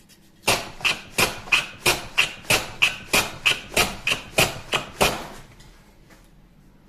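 Wooden shooting plane with a beech body and steel sole plates being run rapidly along a shooting board, its iron shaving the end of a board: about fifteen short, sharp cutting strokes, roughly three a second, stopping about five seconds in.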